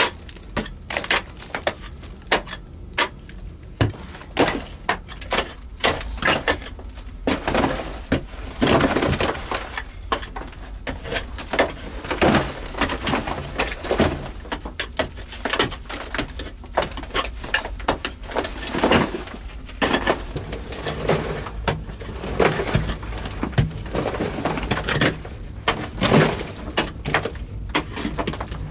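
Rock being chipped and scraped away by hand from a fire-weakened cave wall: irregular sharp knocks and scrapes, with crumbling and the rattle of broken rock falling.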